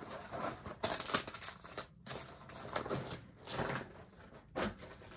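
Rustling and crinkling of cross-stitch projects being handled and set aside, in several irregular bursts.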